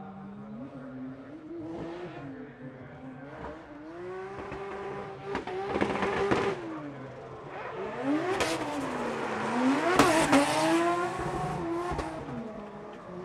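Mazda RX-7 FC drift car's rotary engine revving up and down over and over as it slides, with tyre squeal swelling in the middle and loudest about ten seconds in. A few sharp cracks come in the second half.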